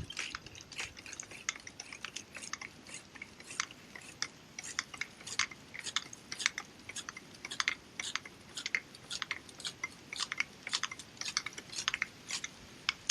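Pruning saw cutting through a tree branch at the trunk: a long run of short, crisp strokes, a few a second.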